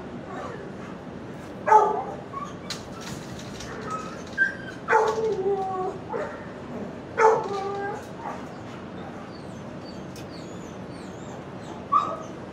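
Dogs in shelter kennels barking: about four separate barks a few seconds apart, the second one drawn out and falling in pitch, with faint high whines near the end.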